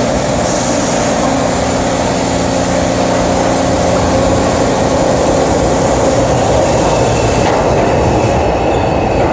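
R142-family New York City subway train coming into the station on the near track and running past: a steady, loud rumble of wheels on rail with a held tone running through it.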